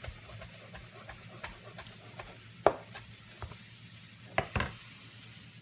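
Chef's knife chopping fresh cilantro on a plastic cutting board: scattered, irregular knocks of the blade on the board, the loudest about two and a half seconds in and a quick pair near four and a half seconds.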